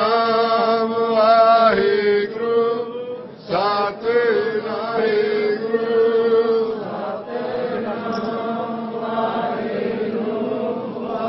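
Sikh devotional chanting (kirtan): a sung hymn in long held melodic lines, pausing briefly for breath about two and three and a half seconds in.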